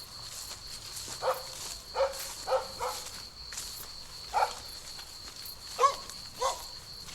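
A dog barking: about seven short barks at uneven intervals. A steady high-pitched insect buzz runs underneath.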